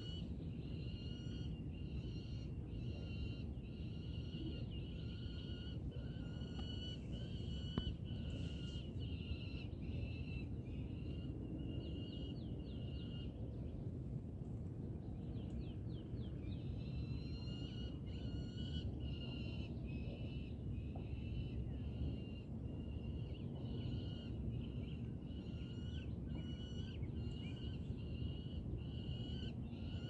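An eagle calling in a long run of short, repeated high-pitched notes, with a pause of a few seconds about halfway. A steady low rumble runs underneath.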